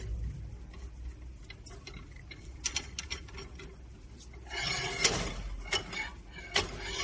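Small metal clicks and clinks of an injector puller being fitted and worked on a diesel injector, with a scraping rustle about four and a half seconds in and a few sharper clicks.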